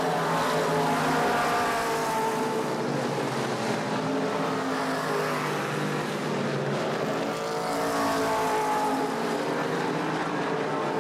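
A pack of late model stock cars racing, their V8 engines running hard. Several engine notes rise and fall over one another as the cars go around the track.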